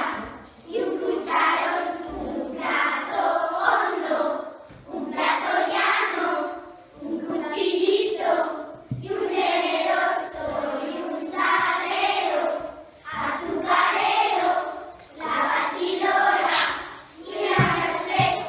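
A group of children singing together in unison, line by line, with short breaks between the phrases.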